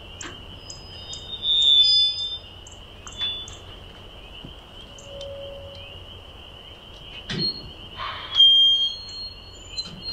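Birds chirping and whistling, with louder whistled calls about two seconds in and near the end, over a steady high-pitched chorus. A few short sharp clicks, the clearest about seven seconds in.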